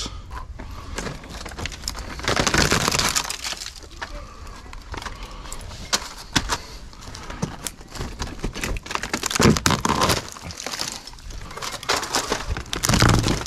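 Termite-damaged wooden boards being pulled apart and handled over a pile of scrap lumber: irregular cracking, splintering and clattering of rotten wood, louder about two seconds in, again around nine and a half seconds, and near the end.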